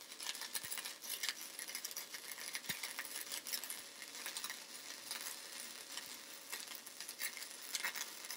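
Gasless flux-core wire arc from a YesWelder YWM-200 welder, crackling steadily as it lays a bead along a butt joint in thin-wall galvanized steel tubing. The gun oscillates in and out of the weld pool to avoid burning through.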